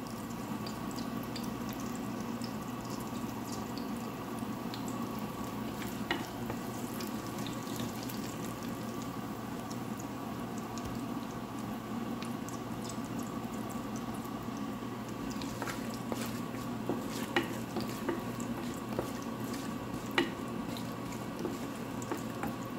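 Whole spices (fennel seeds, bay leaves, star anise) frying gently in hot ghee in a stainless steel pot, a soft steady sizzle. A few light clicks later on come from a wooden spoon stirring in the pot.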